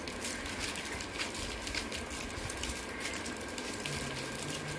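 Dried yellow maize being shelled by hand: a steady, irregular patter of small clicks as kernels are twisted off the cobs and drop onto a pile of loose grain.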